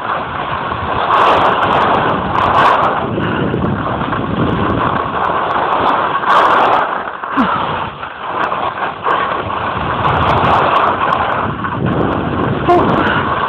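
Wind rushing over a phone microphone and skis scraping on snow during a downhill ski run, rising and falling in level, with a few brief clicks.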